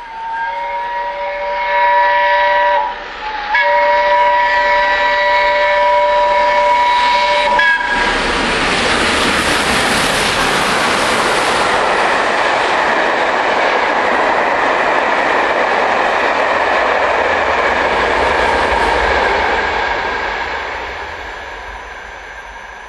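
The steam whistle of LNER Peppercorn A1 Pacific 60163 Tornado blowing two long blasts as the locomotive approaches at speed. About eight seconds in, the locomotive and its coaches pass at speed, a loud rushing noise of steam and wheels that dies away over the last few seconds.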